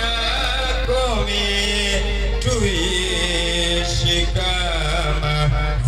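Music played loud through a loudspeaker system: a voice singing long, sliding lines over a heavy, steady bass.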